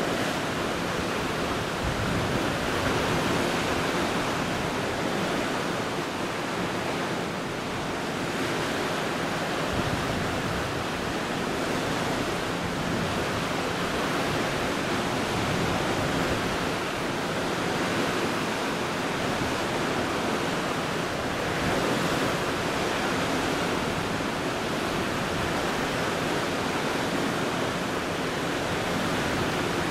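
Steady rushing of sea waves, with some wind.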